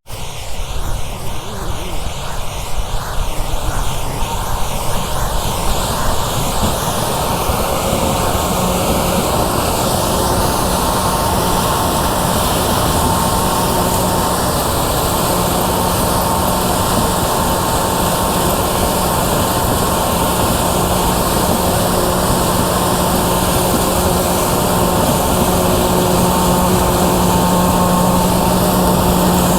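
Combine harvester running steadily while harvesting corn: a continuous machine drone with a steady low hum.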